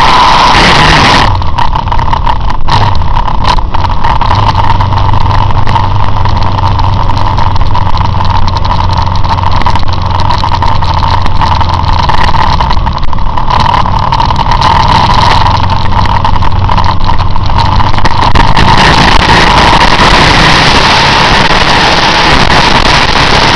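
Motorcycle riding heard from a camera mounted on the bike: heavy wind noise across the microphone with the engine running underneath. The wind noise drops about a second in, leaving a low steady engine note. It comes back at full strength a few seconds before the end as speed picks up.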